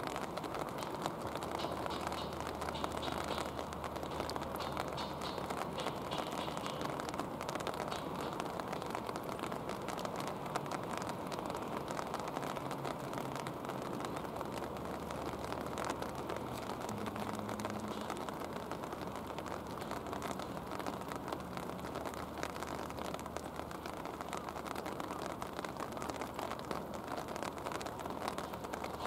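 Steady rain falling, a dense patter of drops. Underneath runs a low hum that drops out about ten seconds in and comes back a few seconds later.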